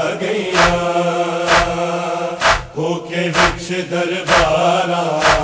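Male voices chanting a held, wordless drone in the refrain of a Shia noha lament, over a steady sharp slap about once a second.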